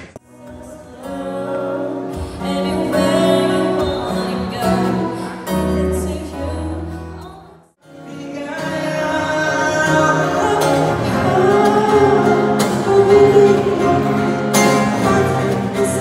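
A man singing a slow song into a microphone while playing an acoustic guitar. The music drops out briefly about eight seconds in, then resumes.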